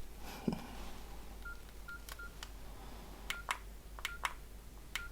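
Nokia 6680 keypad being pressed: about six short, same-pitched key-tone beeps, each with a sharp click of the button. There is a soft knock of the handset being handled about half a second in.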